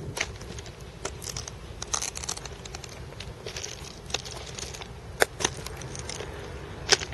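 Footsteps crunching on railroad-track gravel ballast, uneven and irregular, with a few sharper crunches about five seconds in and near the end.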